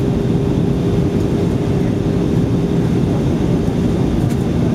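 Steady cabin noise inside an Airbus A320 in flight, on descent: the drone of the engines and rushing air, with a steady hum over a low rumble.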